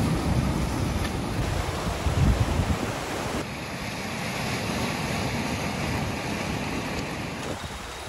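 Surf breaking on a rocky, cobbled shore, with wind buffeting the microphone. The low wind rumble is strongest in the first three seconds, with gusts around two seconds in, then gives way to a steadier, lighter wash of waves.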